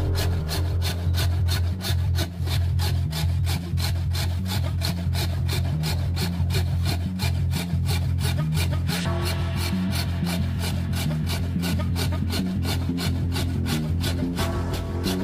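Corded electric scroll saw cutting a curve through a thick hardwood plank, the blade rasping through the wood in a steady, regular pulse without a break.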